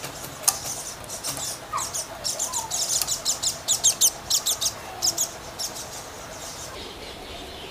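Quick, sharp scraping strokes of a hand tool worked across a rubber mud flap mounted as a motorcycle engine guard, several strokes a second, loudest about halfway through and stopping shortly before the end.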